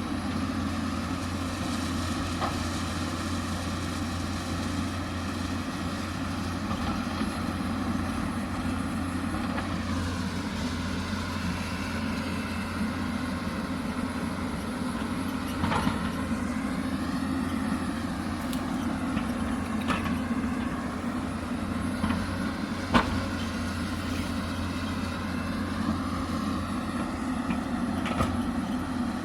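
Hyundai 220 crawler excavator's diesel engine running steadily under load, its pitch rising and falling as the hydraulics work. A few sharp knocks break in, the loudest about 23 seconds in.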